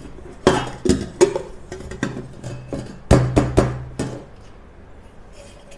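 Metal cake tin, upturned on a plate, knocked about ten times to loosen the baked cake inside. The knocks are sharp and some ring briefly, and they stop about four seconds in.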